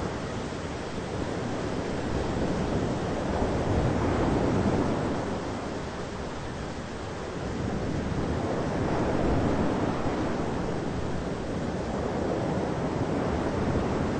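Thunderstorm ambience: a steady rushing noise, heaviest in the low range, that swells and eases about every four to five seconds, with no sharp cracks.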